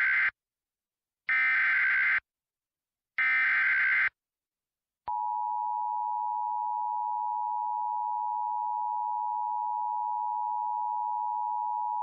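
Emergency Alert System SAME header: three bursts of warbling digital data tones, each about a second long and about a second apart. About five seconds in, the steady two-tone EAS attention signal starts and holds, marking the start of a new alert.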